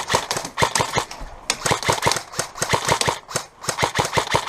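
Airsoft guns firing in several rapid bursts of sharp shots, with brief pauses between the bursts.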